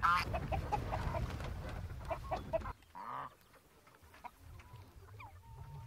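Hens clucking and squawking in a run of short calls, which drops away sharply between two and three seconds in, leaving only a few scattered calls.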